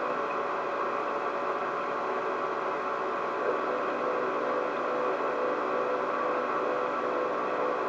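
A steady, unchanging droning hum: several fixed tones over an even hiss, from a running machine or electrical source in the room. There is a faint tick about three and a half seconds in. The uploader takes the hum for a pulsed frequency attack.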